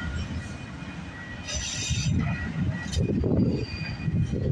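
CPKC freight train rolling past close by: a low rumble with an uneven clatter of wheels on the rails, growing louder after about a second and a half, with brief high hissing or squealing from the wheels.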